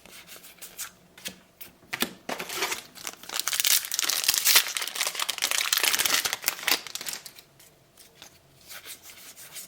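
A trading-card booster pack's wrapper being torn open and crinkled, loudest in the middle few seconds, with scattered light clicks of cards being handled before and after.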